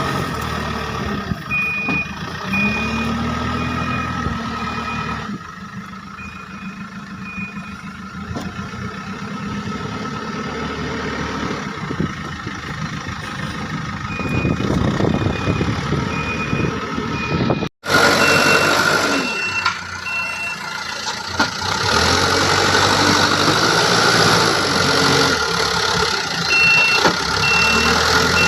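Diesel engines of a backhoe loader and tipper trucks running, with a reversing alarm beeping about twice a second in several spells. The sound cuts out for an instant about two-thirds of the way through, and after that the beeping sits a little higher in pitch.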